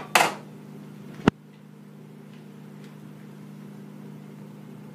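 A steady mechanical hum made of several low tones, broken by one sharp click about a second in, with a short burst of noise at the very start.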